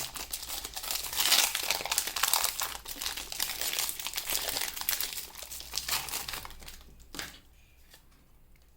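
Foil booster pack wrapper crinkling and tearing as it is opened, with a dense crackle that fades out about seven seconds in after one last click.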